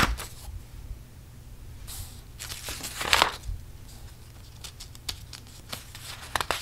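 Printed paper pages being turned in a three-ring binder: one page swishes over at the start and another about two to three seconds in, with light paper rustles and small ticks near the end.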